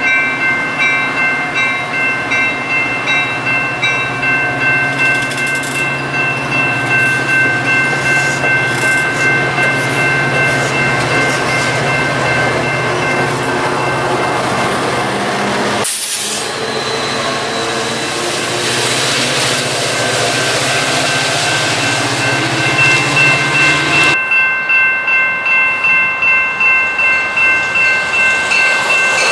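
Metra bilevel commuter coaches rolling past at close range, their wheels running on the rails, while a railroad grade-crossing bell rings steadily at about one and a half strikes a second. The sound changes abruptly twice along the way.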